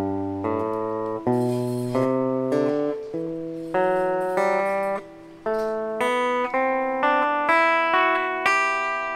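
Heritage semi-hollow electric guitar playing a G major scale upward, one note plucked about every half second on a different string each time, so that open strings and close intervals ring over one another. The run climbs steadily in pitch, with a short break about halfway through.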